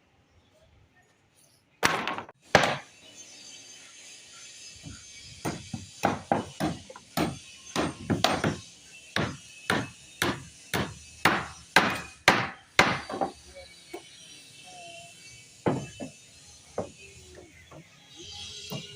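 Hammer blows during slab centering formwork work: a run of sharp strikes, about two a second, starting about two seconds in, with a short break before a few more strikes near the end.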